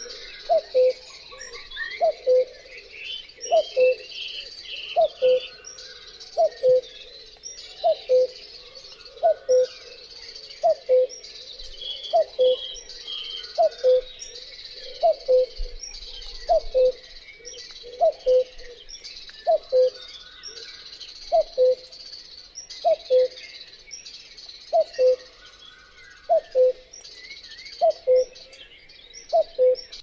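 Common cuckoo giving its two-note falling 'cuc-koo' call over and over, about one call every one and a half seconds, the song of the male. Smaller birds chirp faintly in the background.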